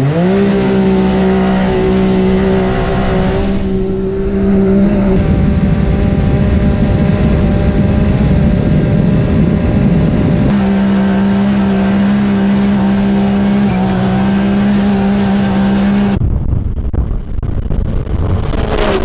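Can-Am Maverick X3 Turbo's turbocharged three-cylinder engine launching at full throttle up a sand dune, heard from the cab with wind: the pitch climbs fast and then holds steady as the CVT keeps the revs up. Near the end the sound turns to wind and side-by-sides approaching, one passing with a drop in pitch.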